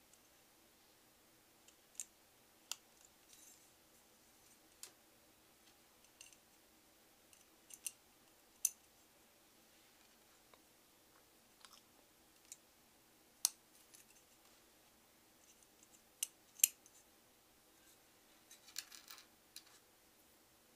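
Scattered sharp clicks and taps of small bolts and hardware being handled and fitted into a CPU cooler's black metal backplate, with a short burst of rattling near the end.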